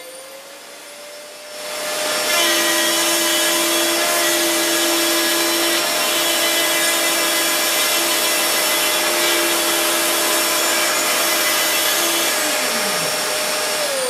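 Optical specimen router's spindle spinning up with a rising whine, then its router bit milling a rectangular slot through a printed circuit board: a loud, steady grinding hiss with a steady hum for about ten seconds. Near the end the cut stops and the spindle winds down with a falling whine.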